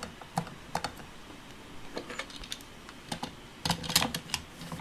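Hard plastic clicks and knocks as the parts of a Play-Doh sprinkle maker are handled and fitted together: the blue cylinder and its twist-rod top. The clicks are scattered at first and bunch into a quick cluster just under four seconds in.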